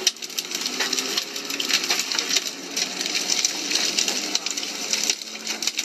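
Strong tornado wind with a dense, rapid clatter of small hits.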